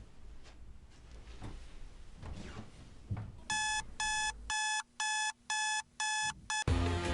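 Electronic alarm clock beeping, a repeated high-pitched beep about twice a second, starting about halfway in. It cuts off abruptly near the end as a louder sound begins.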